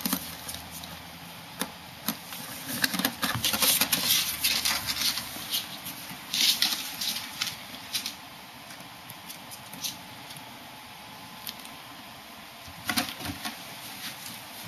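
Ferrets and a kitten scrabbling in and around a cardboard box on a wooden floor: irregular claw clicks, scratches and cardboard rustles, busiest in the first half, then sparse, with a short flurry near the end.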